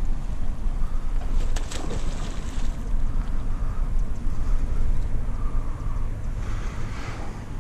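Wind rumbling on the camera microphone, a steady low rumble, with a short run of sharp clicks about one and a half seconds in and a brief rustle near the end.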